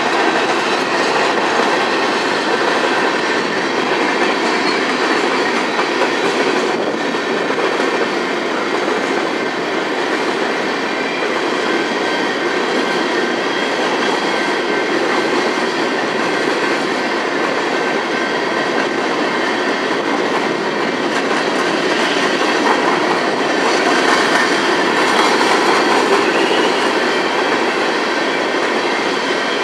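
Loaded-or-empty coal hopper cars of a Union Pacific freight train rolling past close by: a steady, loud rumble of steel wheels on rail that swells slightly near the end.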